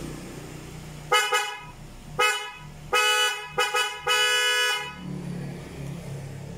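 Newly fitted Bosch EC12-C snail horn sounding in five loud blasts, the first four short and the last a little longer, each one steady high tone.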